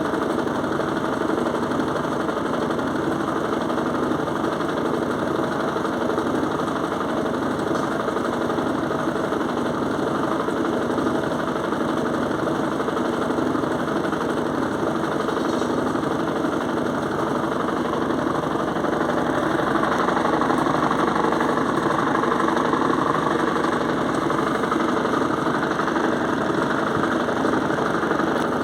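Electrolux washing machine in its spin cycle with a heavy duvet inside, a steady mechanical hum and rumble with a fast pulsing vibration that swells slightly about twenty seconds in. The spin is noisy enough to startle, though the owner takes the noise to be normal.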